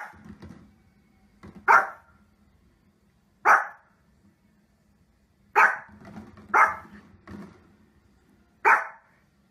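A small fluffy Pomeranian barking: about six sharp single barks, spaced a second or two apart, with a softer one between the last few.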